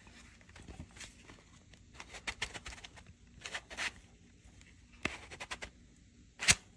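Handling noises: irregular light scrapes, rubs and small clicks, with one sharper click near the end.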